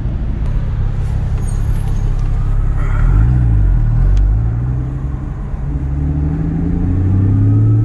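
Porsche Cayman GT4 (981)'s 3.8-litre flat-six engine running at low speed. Its pitch dips and comes back up about three seconds in, then climbs steadily over the last couple of seconds as the revs rise.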